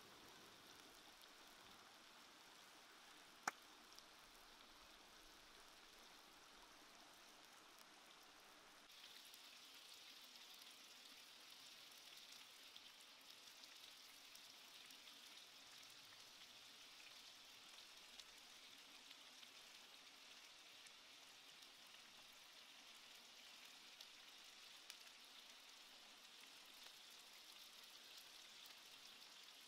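Chicken pieces frying in oil in a pan: a faint, steady sizzle that grows a little louder about nine seconds in, with one sharp pop about three and a half seconds in.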